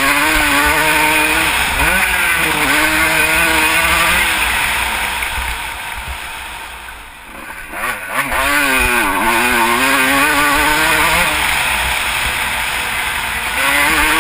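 Motocross bike's engine revving hard, its pitch climbing and dropping over and over as the rider works the throttle and gears. It eases off about five seconds in, drops low near seven seconds, and comes back on hard around eight seconds, with a rush of wind noise throughout.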